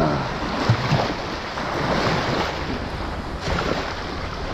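Shallow water splashing and churning around a hand-held snook at the waterline, with wind buffeting the microphone. A couple of sharper splashes stand out in the first second.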